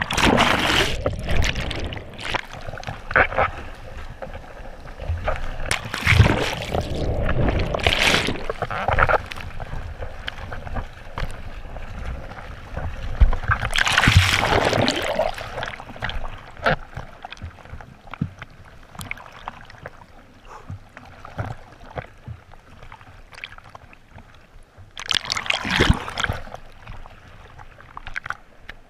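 Seawater splashing, sloshing and gurgling around a GoPro camera held at the surface of choppy sea, the lens dipping in and out of the water. Several loud rushes of water come and go: near the start, around six to nine seconds in, near the middle, and again a few seconds before the end.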